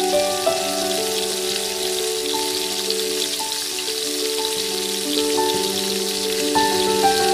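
Oil sizzling and crackling steadily as sliced onions fry in a pot, under background music of soft held notes.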